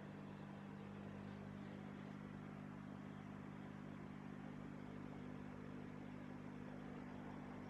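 Steady low electric hum of an aquarium filter pump, with a faint even hiss over it.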